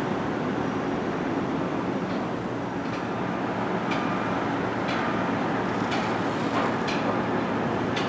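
Distant construction-site din: a steady low rumble with a few short, sharp clicks in the second half.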